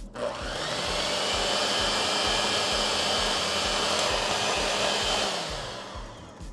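Electric hand mixer running, its beaters creaming butter with brown and powdered sugar in a glass bowl. The motor spins up just after the start, runs steadily with a high whine, and winds down about five and a half seconds in.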